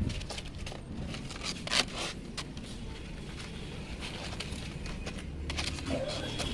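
Lead-acid battery plates and plastic separators being handled and stacked by hand: scattered clicks and scrapes, the loudest about two seconds in, over a low background rumble.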